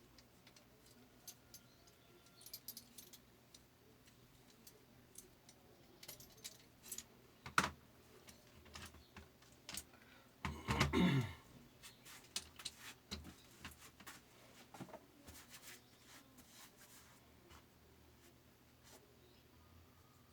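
Light metallic clicks and clinks from the sharpener parts of an 8-inch fabric cutting machine being handled, scattered and irregular, with one short louder rattle about halfway through.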